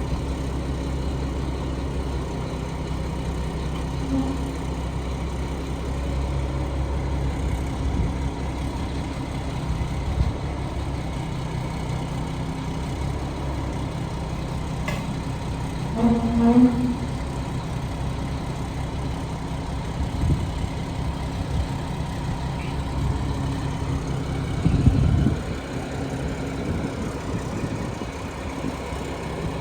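Engine idling steadily, with a short pitched tone about halfway through and a brief louder low surge near the end.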